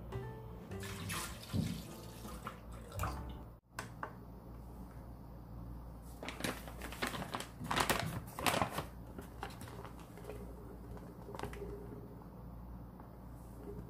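Milk poured from a carton into a plastic blender jar. After a break about three and a half seconds in, flour is tipped into the jar in several pours, the loudest around eight seconds in.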